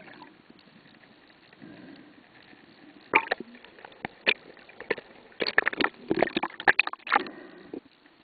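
Sea water splashing and slapping against a camera's underwater housing at the surface: a quick run of sharp splashes from about three seconds in to just past seven. Before and after, only the faint, muffled hiss of being underwater.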